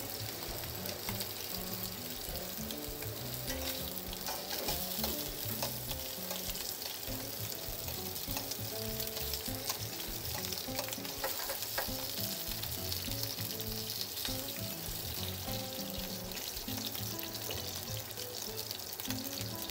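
Prawns frying in a generous layer of hot olive oil: a steady sizzle and crackle, with a few light clicks as they are turned with metal tongs. Soft background music with stepped notes runs underneath.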